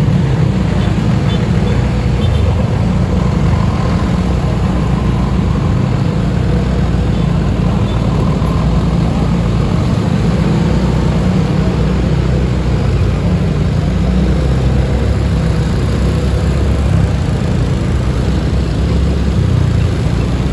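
Steady low rumble of a motor vehicle, even in level throughout, with no horn sounding.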